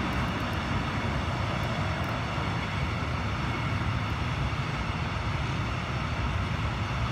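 Freight train of loaded flat wagons rolling past: a steady rumble of wheels on the rails.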